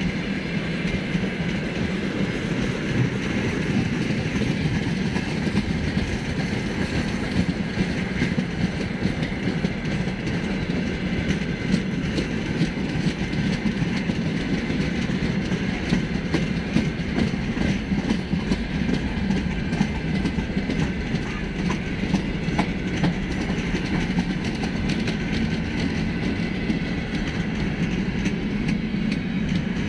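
Freight train of tank wagons and covered hopper wagons rolling past: a steady rumble of wheels on rail, with repeated clicks as the wheels cross rail joints.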